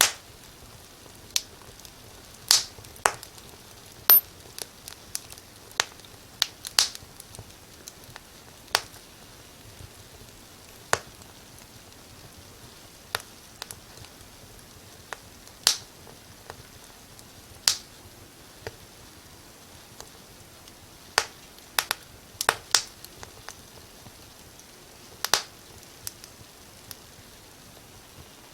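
Firewood burning in a fireplace, crackling with sharp, irregular pops and snaps over a faint steady hiss. Some pops come in quick clusters of two or three.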